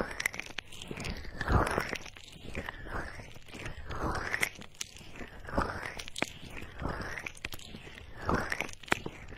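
Hands rubbing and cupping the silicone ears of a binaural microphone: close, muffled rubbing that swells and fades about every second or so, with small clicks between the swells.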